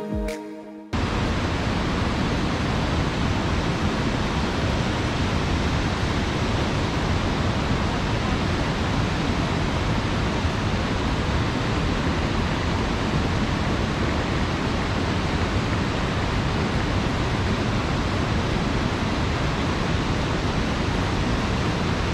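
Steady rushing of a waterfall, an even, unbroken roar. Music cuts off just under a second in, as the roar starts.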